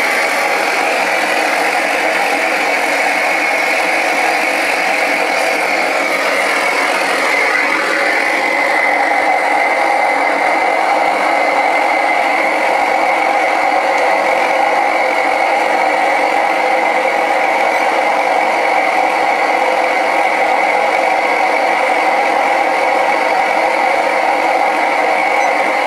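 Gas burner of a homemade mini melting furnace running steadily: a loud, even rush of flame. Its tone shifts slightly about seven seconds in.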